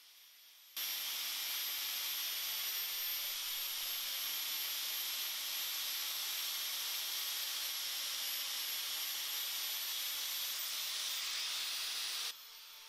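Angle grinder with a wire cup wheel scouring paint and rust off a cast iron bandsaw frame: a steady, high, even scrubbing noise that starts about a second in and cuts off suddenly near the end.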